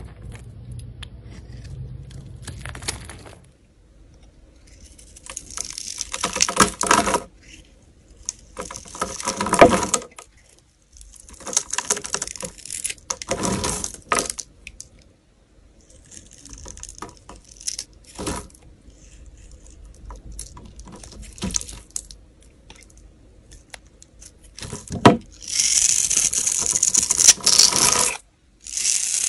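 A knife blade cutting through a hard, crumbly bar of soap, giving crisp crunching and crackling strokes. They come one to two seconds long with short quiet gaps between them, and the longest, loudest run is near the end.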